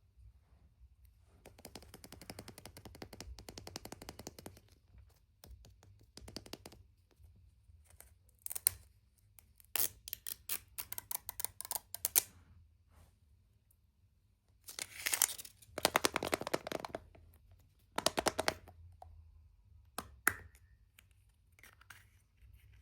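Hands unwrapping and opening a surprise egg: rustling and crinkling of wrapper or packaging, with runs of sharp clicks and taps of small plastic parts.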